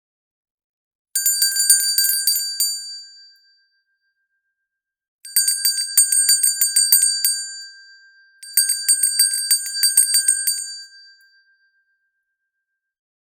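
Hand bell shaken in three bursts of rapid clapper strikes, each about two to three seconds long. A bright, high ring fades out after each burst.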